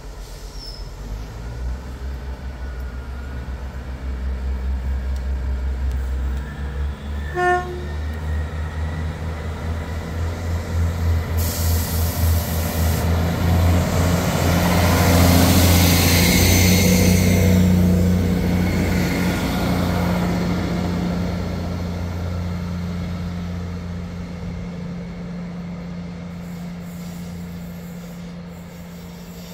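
Class 158 diesel multiple unit pulling away, its diesel engine throbbing and rising in pitch as it accelerates, growing louder to a peak about halfway through and then fading as it draws away. A short tone sounds briefly about seven seconds in.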